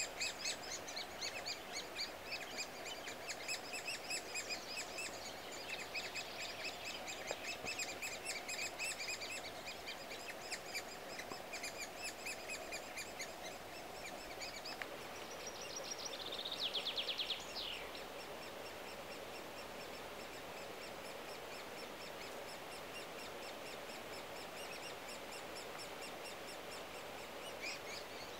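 Great spotted woodpecker nestlings begging from inside the nest hole as the adult feeds them: a rapid, continuous run of high chirping calls that dies away after about thirteen seconds and starts again near the end. About halfway through, a short fast trill from another bird is the loudest sound.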